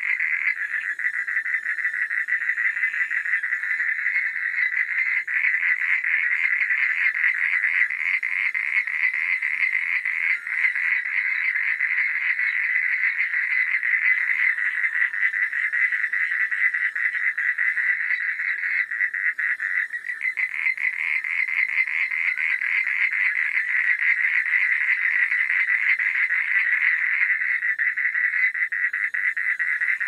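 Frogs calling in a dense, fast-pulsing trill that runs on without a break, dipping briefly about ten and twenty seconds in.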